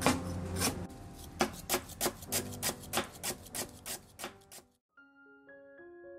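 Kitchen knife chopping lemongrass on a wooden cutting board: quick strikes about three to four a second, speeding up, over soft background music. The chopping stops suddenly near the end and gentle piano music carries on.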